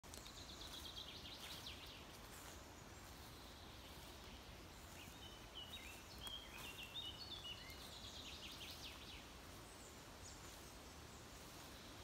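Small songbirds singing faintly over a steady background hiss. A quick run of high chirps comes near the start, then a phrase of short notes stepping up and down in the middle, with another quick series just after it.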